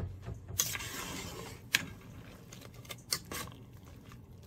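A few light, sharp clinks and scrapes of a metal ladle against a pot as it works through cooking noodles, over a faint low background.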